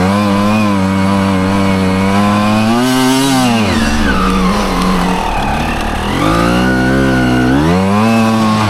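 Dirt bike engine revved up under throttle, held high for about three seconds, then dropping back to a lower pitch before revving up again near the end.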